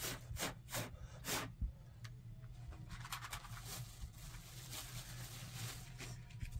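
Four short scratchy scrapes in the first second and a half, then a stretch of faint scratching and rustling from hands working with small objects.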